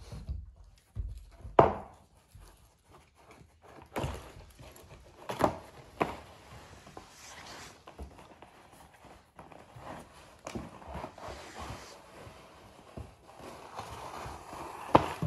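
A Labrador puppy pushing and pawing an egg carton across a wooden floor: irregular knocks and scrapes of the carton and paws on the floorboards, the loudest about a second and a half in.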